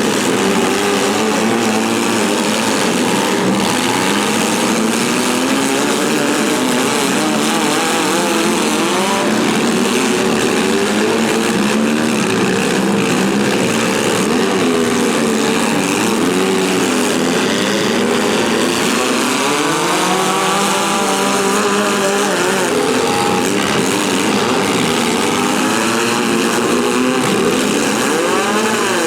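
Several compact demolition-derby cars' engines running at once, revving up and down over and across each other, loud and continuous.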